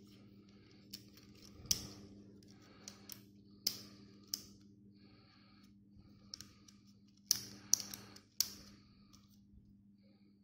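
Hard plastic clicks and taps from a Mini 4WD kit's chassis and parts being handled and fitted together: about ten sharp clicks at irregular intervals, several bunched together near the end, with light scraping between them.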